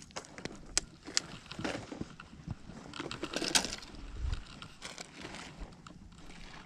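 Close handling noises as a striped bass is unhooked from a soft-plastic fluke and lifted: scattered sharp clicks with bouts of rustling and crunching, and a dull knock a little after four seconds in.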